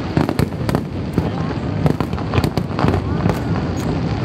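Aerial fireworks bursting: a rapid, irregular string of bangs and crackles over a constant din.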